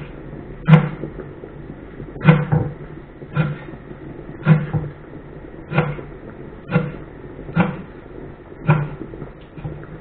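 Kitchen knife chopping green onion on a wooden cutting board: slow, even knocks, about one a second, each a short thud of the blade hitting the board.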